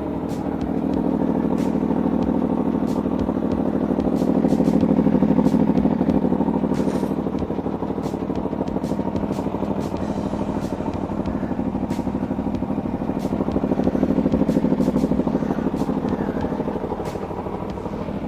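Aprilia Tuono V4 motorcycle's V4 engine running, its level swelling and easing a little twice.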